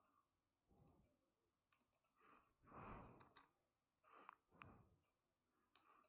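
Near silence, with a faint breath about halfway through and two soft computer-mouse clicks shortly after.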